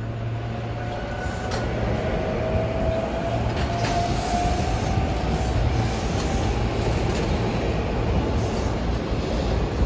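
SEPTA Silverliner V electric multiple-unit train pulling away and running past: a steady rumble of wheels on rail with a whine that climbs slightly in pitch as it gathers speed, and a few clicks over the rail joints.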